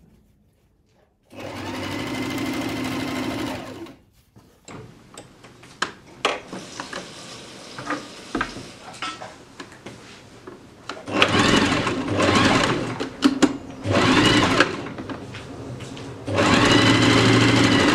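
Singer domestic electric sewing machine stitching in bursts: one run of about two and a half seconds starting just after a second in, then several seconds of quieter scattered clicks, then three shorter runs near the end, the last still going at the close.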